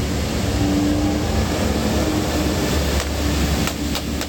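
A steady low rumble, with a few light clicks and knocks of plastic action figures being handled in a plastic basket from about three seconds in.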